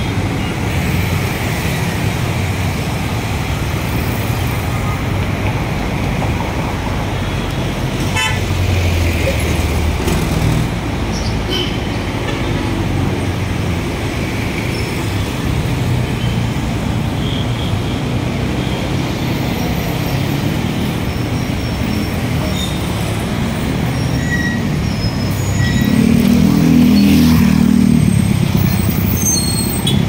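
Busy city street traffic: motor scooters, cars and trucks passing with engines running, and a few short horn toots. A heavier engine passing close is louder near the end.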